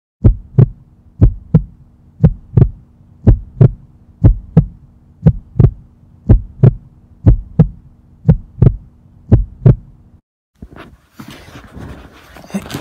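Heartbeat sound effect: paired lub-dub thumps about once a second over a faint steady hum, ten beats in all, stopping about ten seconds in. Rustling follows near the end.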